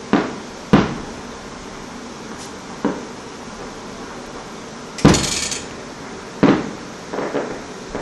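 Fireworks popping: a series of separate bangs, the biggest about five seconds in followed by a brief crackling hiss, and a quicker run of smaller pops near the end.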